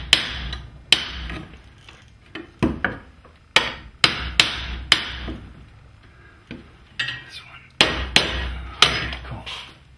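Hammer tapping on a steel garage door hardware bracket to nudge it up a little before it is screwed fully in. The taps are sharp and irregular, about ten of them in small groups, each ringing briefly.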